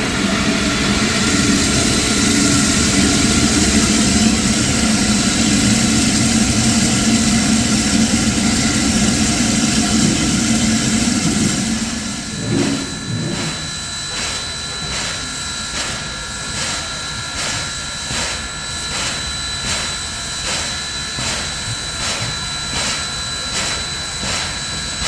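Baldwin steam locomotive No. 26 standing with a loud steady hiss of steam, which cuts off about halfway through. A grade-crossing bell rings in even strokes, heard plainly once the steam stops.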